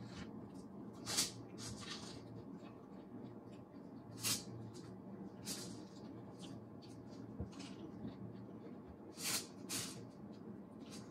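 Eating sounds at the table: a handful of short crunches and rustles of food and lettuce leaves being handled and bitten, two close together near the end, over a faint steady low hum.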